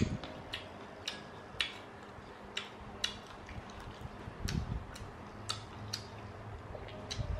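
Scattered sharp clicks, irregularly spaced about half a second to a second apart, with a soft low thump about four and a half seconds in.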